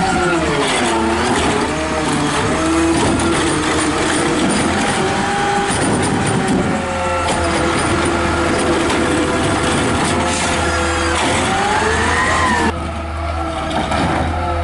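McNeilus ZR automated side-loading garbage truck's natural-gas engine revving up and down to drive the hydraulic arm as it grabs, lifts and dumps a cart, its pitch falling and rising in long glides. Near the end the sound cuts abruptly to a quieter, more distant engine running.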